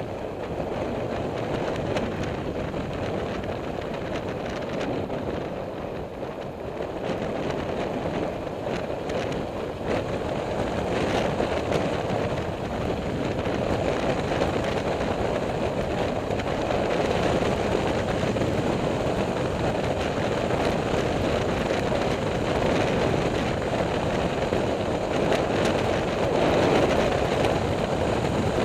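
Motorcycle riding along a road: a steady mix of engine and wind rush over the microphone, growing slightly louder as it goes.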